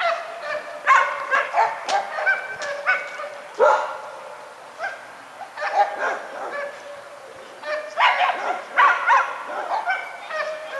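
Repeated short, high-pitched animal calls, coming in clusters with the busiest run about eight seconds in.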